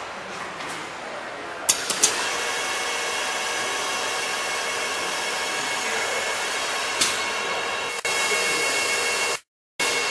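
Commutator turning machine starting up about two seconds in with a couple of clicks, then running with a steady whirring hiss and a high whine. Another click comes later, and the sound cuts out for a moment just before the end.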